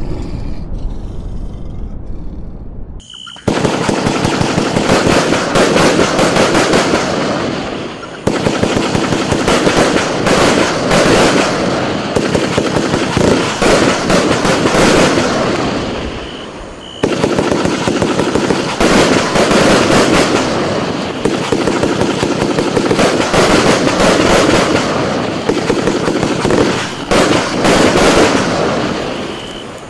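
Barely Legal 'Salvo Break Down' fireworks cake firing a dense, rapid barrage of shots and bursts, starting about three seconds in after the low tail of a logo sound effect fades out.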